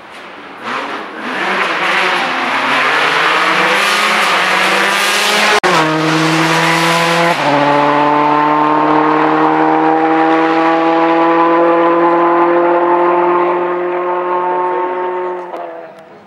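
Rally car under full throttle, its engine climbing in pitch with two sharp upshifts about five and a half and seven and a half seconds in. It then holds high revs before fading away near the end.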